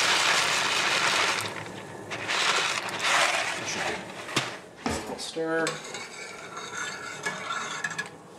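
Dry macaroni poured from a bag into a saucepan of boiling water, a loud rattling hiss in two pours. Then lighter clicks and clinks as the pot is stirred.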